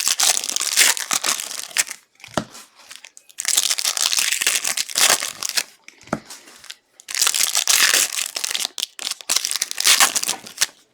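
Foil trading-card pack wrappers being torn open and crinkled by hand, in three long stretches of crackling with short pauses between.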